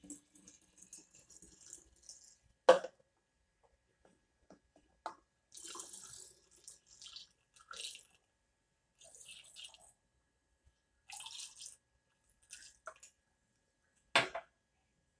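Vodka poured through a funnel into a glass jar of lemon peels, with trickling and dripping of liquid. Two loud knocks come about three seconds in and near the end.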